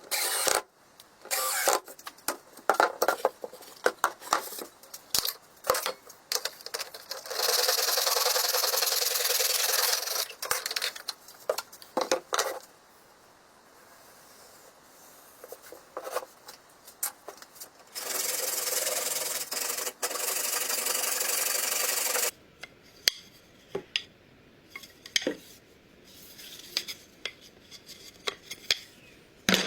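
Hand woodworking on wood: scattered knocks and clicks of tools and workpiece being handled, with two long, even scraping passes about a second and a half to four seconds apart in length, one about a third of the way in and one past the middle.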